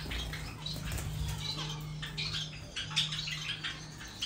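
Small aviary finches chirping: many short, high calls scattered throughout, with a brief flutter of wings at the start, over a steady low hum.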